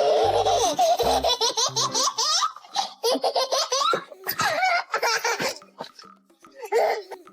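A baby laughing hard: one long unbroken fit of laughter, then shorter bursts of giggles and belly laughs, the last near the end.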